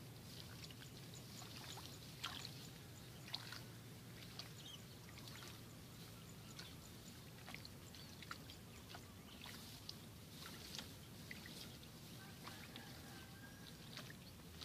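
Faint, irregular rustling and crackling of rice plants as weeds are pulled out by hand in the paddy, over a low steady hum.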